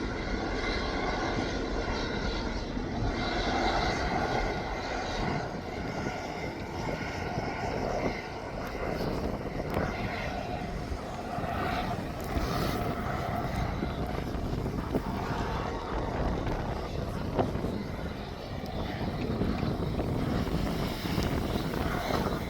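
A steady engine drone over a low rumble, with a few steady tones that are strongest in the first few seconds and then fade back.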